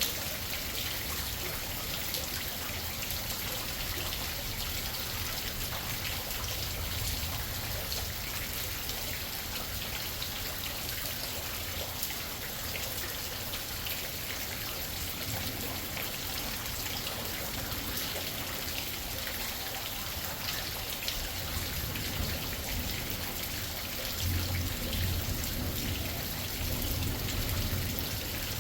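Heavy rain falling steadily, an even hiss of drops. A low rumble of thunder swells near the end.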